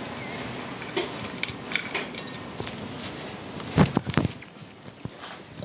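Kitchen clatter: a few light clinks of utensils against dishes, then a heavier knock on the counter about four seconds in.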